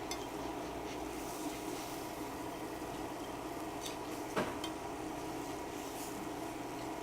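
Whisk working flour into melted butter in a pan, with a few light clicks of the whisk against the pan, the clearest about four and a half seconds in, over a steady hum.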